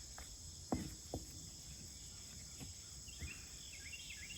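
A steady high-pitched chorus of crickets and other insects, with two sharp knocks about a second in. From about three seconds in, a bird sings a run of quick, repeated short notes.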